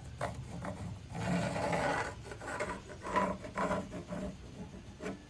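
Scraping and rubbing on a wooden board as a pencil is drawn along a steel rule and the rule is slid across the wood to mark out an axe handle. There is one long stroke about a second in, then several shorter strokes.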